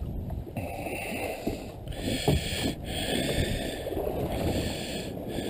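Wind on the microphone and sea water lapping against a small boat's hull, a steady rushing noise, with a few light clicks.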